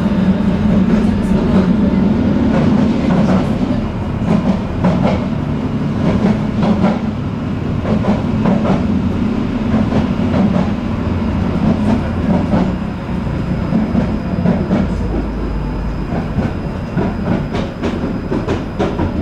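Tram running along the track, heard on board: a steady low hum with the wheels clicking and knocking over rail joints at irregular moments throughout.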